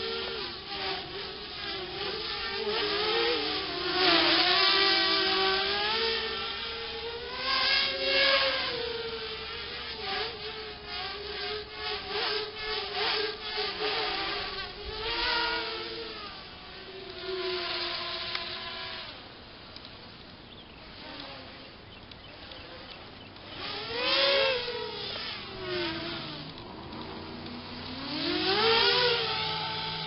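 A small racing quadcopter's electric motors and propellers whine from a distance as it flies around. The pitch rises and falls in repeated surges as the throttle is worked, and it grows louder in several passes.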